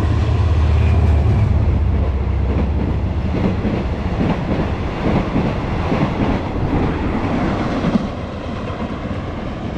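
Old diesel-hauled passenger train passing close below. A deep engine drone is loudest in the first second or so, then the wheels clatter over the rail joints, easing off slightly near the end.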